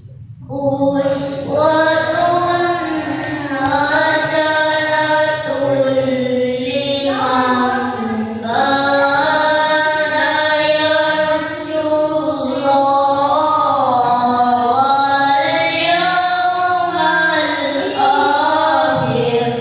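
A child's voice in melodic Quran recitation (tilawah), with long held notes ornamented with wavering turns, and short pauses for breath about eight and twelve seconds in.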